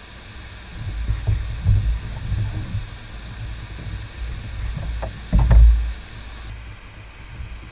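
Water splashing and sloshing at the side of a kayak as a hooked catfish is brought to the surface, over a low rumble. Several short splashes, the loudest about five and a half seconds in.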